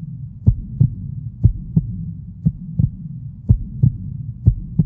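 Heartbeat sound effect: paired low thumps (lub-dub), five beats at about one a second, over a steady low hum.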